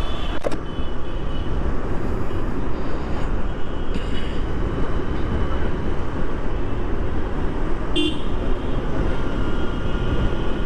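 Steady road traffic and rumbling wind noise, with a short vehicle horn toot about eight seconds in.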